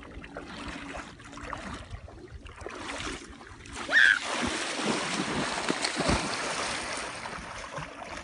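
Water sloshing around a person wading waist-deep through a river. About four seconds in there is a sudden loud splash with a brief high squeak, and churning splashes keep on after it.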